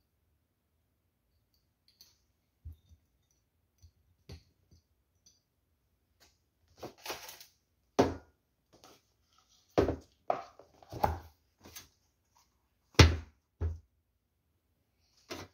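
Bottles, cans and food containers being handled and set down on a metal countertop: a string of irregular knocks and clunks, the loudest about eight, ten, eleven and thirteen seconds in.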